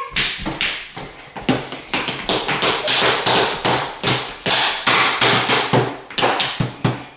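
Rapid, uneven tapping: a string of sharp hits, several a second.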